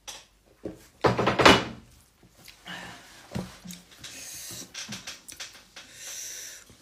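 A loud thunk about a second in, followed by lighter knocks and rustling handling sounds.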